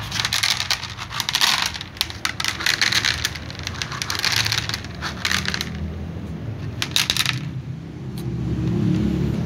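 Dry cat kibble rattling and clattering onto a plastic tray in several dense bursts, stopping about two seconds before the end.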